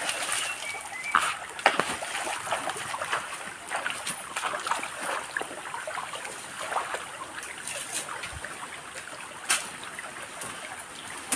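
Water splashing as a person wades through a shallow stream, the stream's flow going on underneath with scattered clicks and knocks. A steady high hiss runs throughout.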